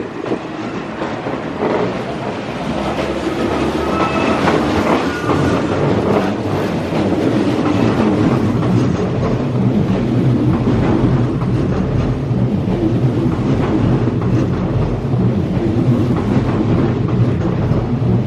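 Hanshin 8000-series electric train pulling out of the station and running past, its wheels clattering over the rail joints. The sound grows louder over the first few seconds as the train gathers speed, then holds steady, with a brief motor whine about four seconds in.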